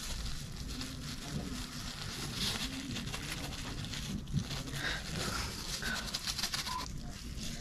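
Thin plastic bag of chili paste crinkling and rustling in the hands as it is untied and squeezed open.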